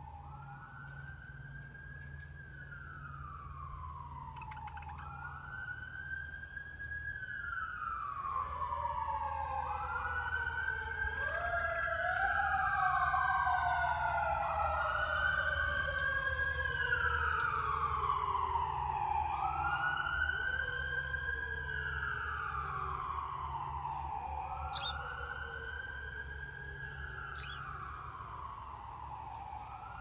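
Several sirens wailing at once, each rising and slowly falling in pitch every few seconds and overlapping the others. They grow louder towards the middle and then fade, as if passing by.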